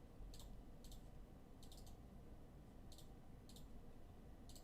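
Several faint, sharp clicks of a computer mouse at uneven intervals, over near-silent room tone.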